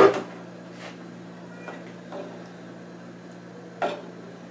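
Wooden spoon knocking against the side of a metal pot while stirring a sauce: one sharp knock at the start and another near the end, over a steady low hum.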